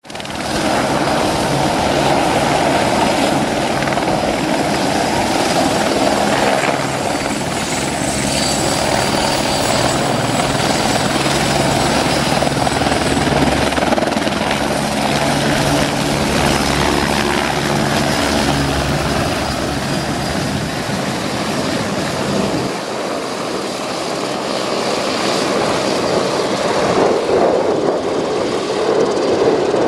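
Eurocopter AS355 Ecureuil 2 twin-engine helicopter hovering low and then climbing away. Its main rotor and turbines run loud and steady. The deep rotor beat fades about two-thirds of the way through.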